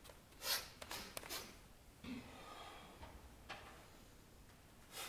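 Quiet room with a few short, sharp breaths or sniffs, the loudest about half a second in and another near the end. A faint murmur and a small click come between them.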